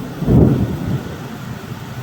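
Thunder rumbling over heavy rain. The rumble swells about half a second in and then eases off.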